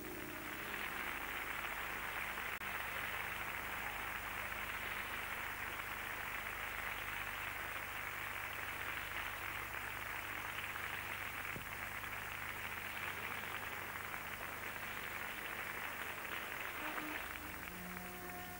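Steady hiss like static or tape noise, even and unbroken, with no tones or beats in it.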